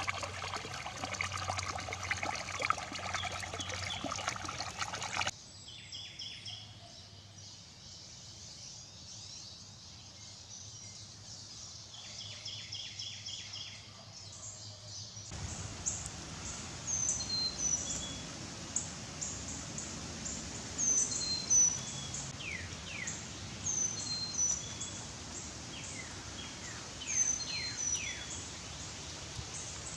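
Outdoor woodland ambience in three cut sections: a dense, noisy mix for the first five seconds, then a quieter stretch with scattered bird calls. From about 15 seconds in, a bird repeats short, high, hooked call notes every second or two over a steady hiss, with a few falling notes mixed in.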